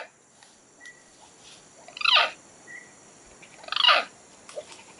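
Wounded monkey shot during a hunt giving two shrill distress screams about two seconds apart, each falling in pitch.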